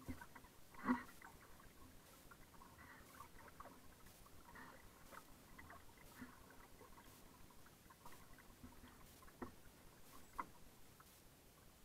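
Faint water lapping against a kayak hull, with a few light ticks and knocks, the sharpest about a second in and two more near the end.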